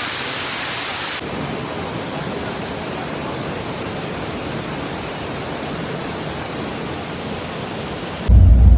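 Waterfall rushing as a steady wash of noise that suddenly turns duller about a second in. Just before the end a much louder low rumble cuts in.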